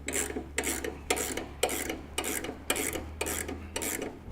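7/8-inch ratchet wrench turning the blade-tension bolt on a Timbery M100 band sawmill, its pawl rasping over the teeth on every stroke, about two strokes a second. This is the blade tension being tightened up.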